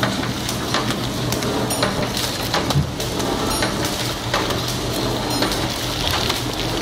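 Horizontal flow-wrapping machine running as it wraps wet-tissue packs in outer film bags: a steady low motor hum with frequent sharp clicks and clatter from the mechanism.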